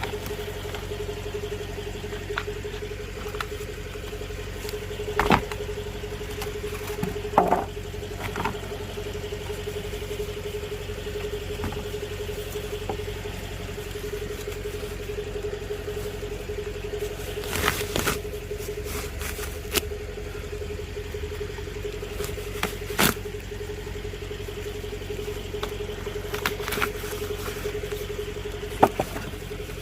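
Car engine idling with a steady hum and a constant mid-pitched tone. Several short clicks and knocks are scattered through it, louder near 5, 18, 23 and 29 seconds in.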